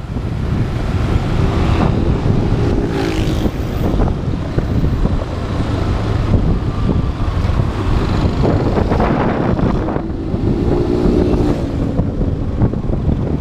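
Motorcycle riding through city traffic: the engine running under way, heavily buffeted by wind noise on the camera microphone. An engine note comes up clearly twice, a couple of seconds in and again about ten seconds in.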